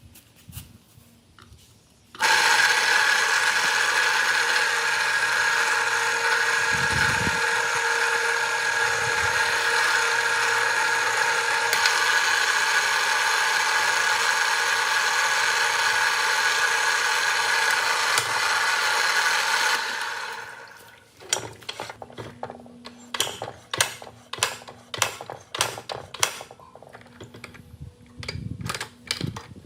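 An electric motor-driven machine starts abruptly, runs steadily with a high whine for about eighteen seconds, then winds down. A run of sharp clicks and knocks follows.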